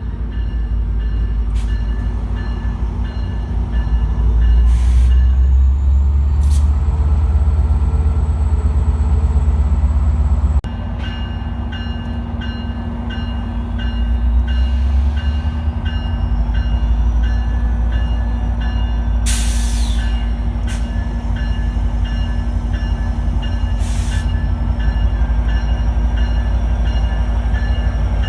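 Amtrak passenger train's diesel locomotive running with a loud, steady low rumble and engine drone as the train pulls out of the station, with a few sharp clicks.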